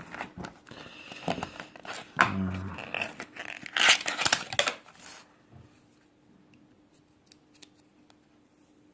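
A paper price-tag sticker and seal being torn and crumpled by hand, crinkling for about five seconds, then a few faint ticks.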